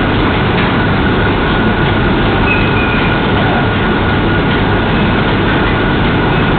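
Steady, unchanging background noise: a loud hiss and rumble with a faint constant high whine.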